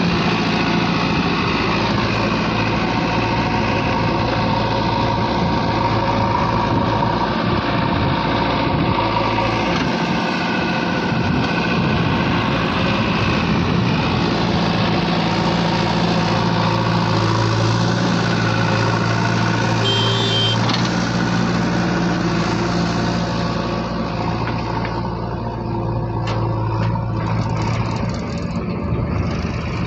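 Diesel engines of a JCB 3DX backhoe loader and a Powertrac tractor running steadily while the loader fills the tractor's trolley with soil. The sound thins and drops a little about twenty-five seconds in.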